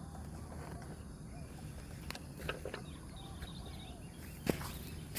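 Spotted doves cooing faintly over steady outdoor background noise, with a few light clicks and one sharper click about four and a half seconds in.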